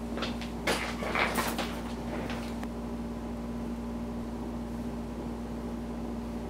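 Rustling and a few soft bumps for the first few seconds as the camera is handled and set in place, over a steady low electrical hum.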